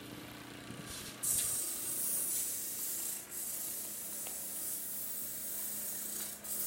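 Brittle metal pieces being cleaned on a century-old powered machine: a steady high scrubbing hiss begins suddenly about a second in, breaking off briefly twice, over the machine's low steady hum.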